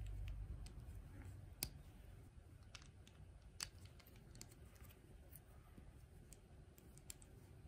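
Faint, scattered clicks of plastic LEGO bricks being handled and pressed together by gloved fingers, with a few sharper clicks standing out.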